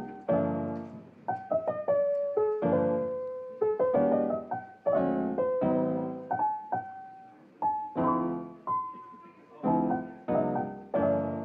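Chill lofi piano music: soft chords struck about once a second, each fading away, with a slow single-note melody between them.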